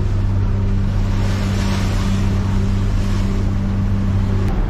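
A ferry's inboard engine running with a steady low drone as the boat cruises slowly. Around the middle a louder hiss of rushing air or water swells up over it.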